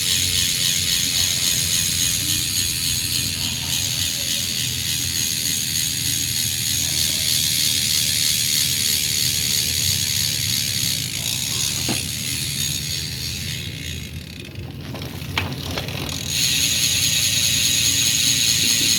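Bicycle freehub ratcheting under a spinning cassette: a fast, continuous buzz of pawl clicks. It fades about two thirds of the way through, with a few separate clicks, then comes back at full strength near the end as the wheel is spun again.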